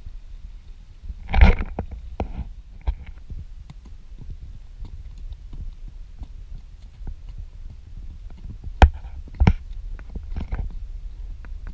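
A horse being ridden at a walk, heard through a camera carried on the ride: a steady low rumble of wind and movement with scattered clicks and knocks. A louder short burst comes about a second and a half in, and a few more near the end.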